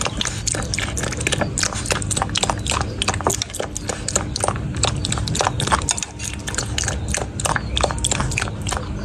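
A dog chewing noisily, a rapid, irregular run of crunches and wet bites.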